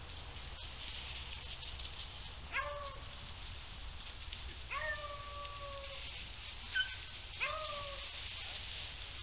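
Hunting dogs baying faintly: four drawn-out howls a second or two apart, one held for over a second, as the pack runs a rabbit through the brush.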